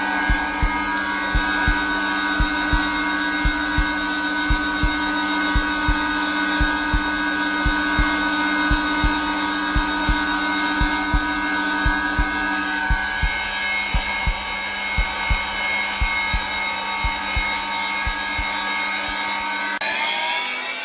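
A Zelmer vacuum cleaner running at its lowest setting, a steady motor whine, with a heartbeat thumping in a regular double beat under it. The whine shifts in pitch about two-thirds of the way through and glides upward briefly near the end.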